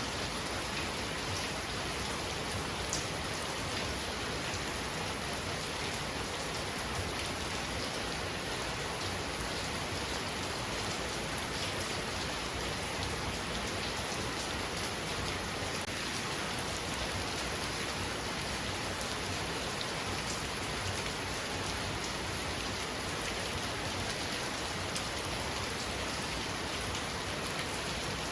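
Heavy rain falling steadily: a dense, even hiss with a fine patter of drops, unchanging throughout.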